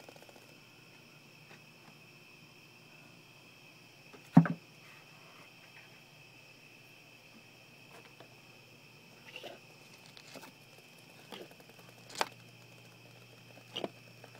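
Scattered light taps and clicks, with one louder knock about four seconds in, over a faint steady high-pitched whine.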